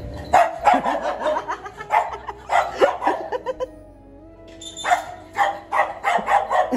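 Small white dog barking in quick, sharp yaps, two runs of barks with a short pause about four seconds in.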